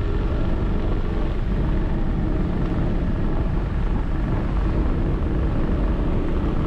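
2009 Dodge Challenger R/T's 5.7-litre Hemi V8 running at track speed, heard from inside the cabin with heavy road and wind noise. The sound is a steady, deep drone.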